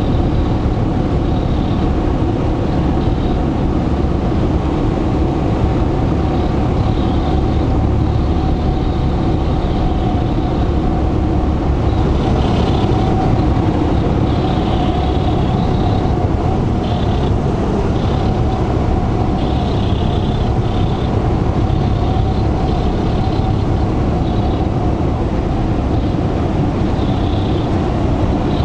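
Cabin noise of a Cessna 172 on final approach: the piston engine and propeller give a steady, loud drone.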